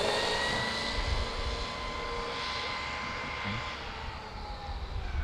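Traxxas X-Maxx RC monster truck's electric motor whining at full speed, a steady high whine that slowly drops in pitch and fades as the truck runs away, over a low rumble.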